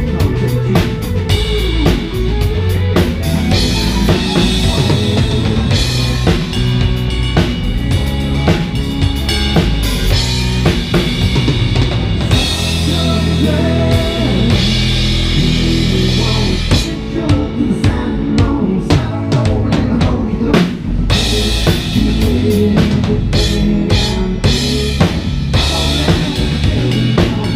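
Live band playing, with the drum kit loudest and close: steady kick, snare and cymbal hits over bass and other instruments.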